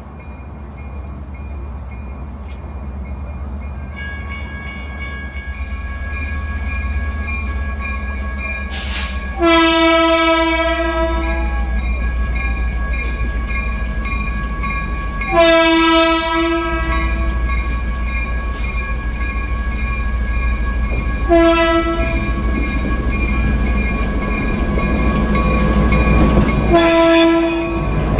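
A train sounds its horn in the grade-crossing pattern: two long blasts, a short one, then a final long one that is still sounding at the end. Under it is a steady low rumble.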